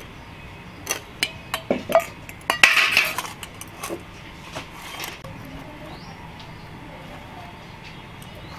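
Clinks and knocks against a steel container as a sabudana vada mixture of soaked sago pearls, mashed potato and peanut powder is stirred and worked by hand, in a quick run during the first half, the loudest rattle about three seconds in. Afterwards only soft mixing is left.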